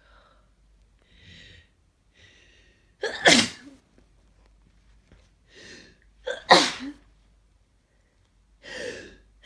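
A person with a congested head cold sneezing forcefully twice, each sneeze led in by gasping in-breaths. Another gasping wind-up builds near the end.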